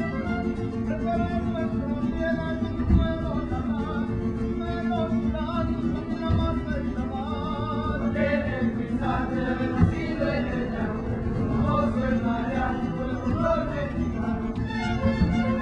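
Mexican folk dance music with fiddles and singing over a steady low accompaniment, with a few short low thumps.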